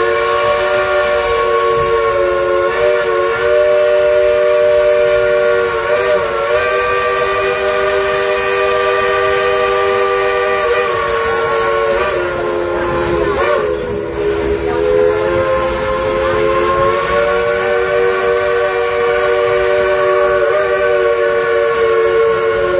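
Baldwin steam locomotive's chime whistle blowing one long, loud chord of several notes at once, with brief wavers and dips in pitch every few seconds as the engineer works the cord.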